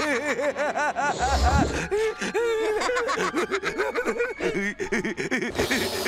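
Cartoon characters laughing hard: a long run of quick, repeated ha-ha bursts, with a short low rumble about a second and a half in.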